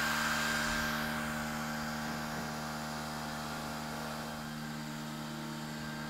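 Handheld hair dryer running steadily, its blowing noise easing down a little after about a second.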